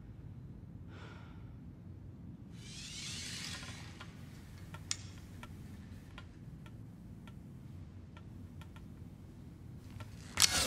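Faint scattered clicks and rustles of a recurve bow being handled and an arrow nocked and drawn over a low steady room hum, with a soft swishing rustle about three seconds in. Near the end comes a sharp loud snap as the bowstring is released.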